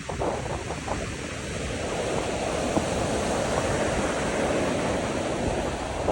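Sea surf washing in, with strong wind and wind buffeting on the microphone. The rush of the water builds over the first couple of seconds and then holds steady.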